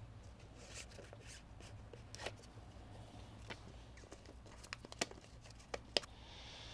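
Faint scraping and a few sharp clicks of plastic opening picks being worked under the heat-softened adhesive of a phone's glued screen.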